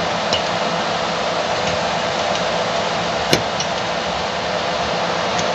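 Steady whir of the 3D printer's cooling fan, with two light clicks as the filament and printhead are handled.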